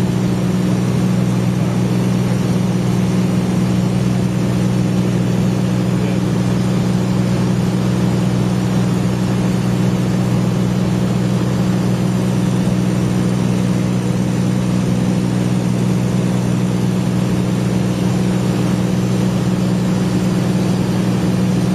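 Steady drone of a high-wing light aircraft's engine and propeller in level flight, heard from inside the cabin: a low, even hum with a hiss over it.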